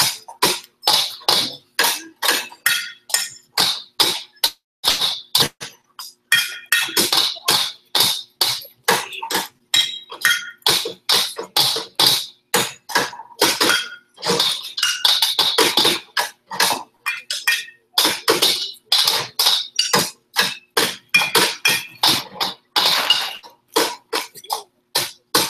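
Metal wheelbarrows struck as percussion instruments by a group of children: a dense, uneven run of sharp strikes, about three a second, with denser ringing stretches now and then.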